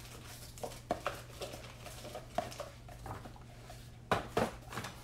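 Scattered light clicks and taps of small objects being handled on a workbench, the loudest cluster a little after four seconds in, over a steady low hum.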